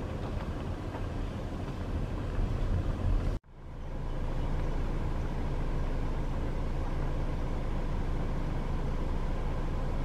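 A car engine idling as a steady low hum. It breaks off suddenly about three and a half seconds in, then carries on steady.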